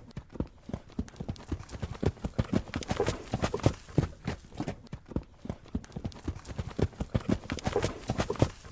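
Horse hooves clip-clopping at a trot, a steady run of hollow knocks several times a second.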